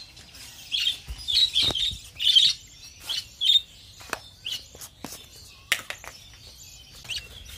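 A cage of budgerigars chirping in short chattering bursts through the first half, then a scatter of sharp clicks and taps.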